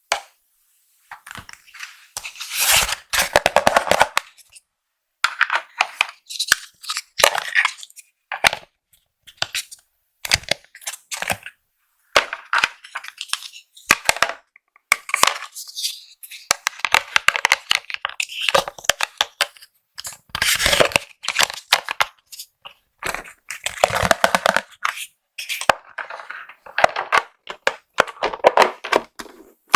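Makeup packaging being unboxed close to the microphone: irregular bursts of crinkling, tearing and sharp clicks, broken by short silent gaps.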